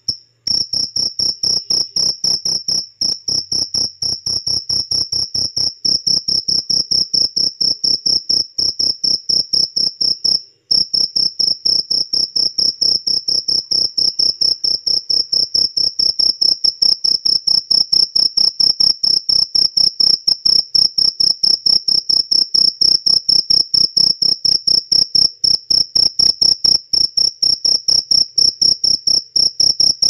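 Black field cricket chirping: a loud, high-pitched song of quick, evenly repeated chirps, broken by two short pauses, one about half a second in and one about ten seconds in. Only males sing this calling song.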